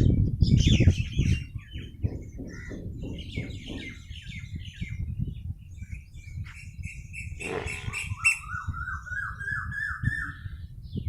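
Birds chirping and calling, with many short high chirps and, in the last few seconds, a run of about ten quick rising notes. A low rumble is loudest in the first second and a half.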